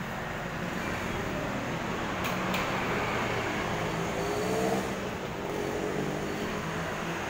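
Steady engine hum of motor vehicles, with one engine note rising about four to five seconds in and two faint sharp clicks a little over two seconds in.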